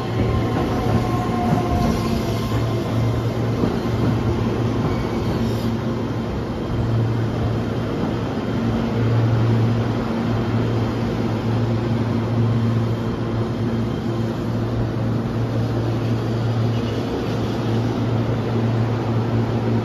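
Keihan 13000 series electric train, with IGBT-VVVF drive, rolling slowly alongside the platform as it brakes to a stop. A steady low electrical hum runs under the rolling noise, and a faint whine falls in pitch during the first few seconds.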